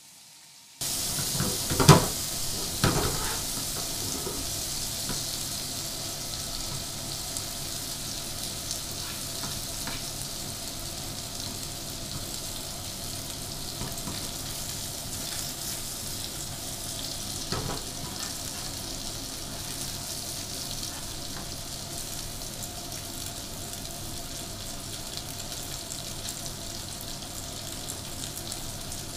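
A fillet sizzling steadily in hot oil in a frying pan, starting about a second in. A metal fork or spatula knocks against the pan a few times, loudest near the start.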